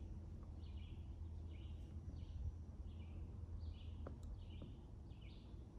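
A bird calling faintly and repeatedly, a short falling note about twice a second, over a low steady background rumble.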